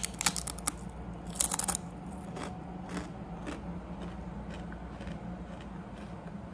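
Crunching on potato chips: crisp bites in the first two seconds, the loudest cluster near the two-second mark, then a few fainter crunches as the chewing goes on.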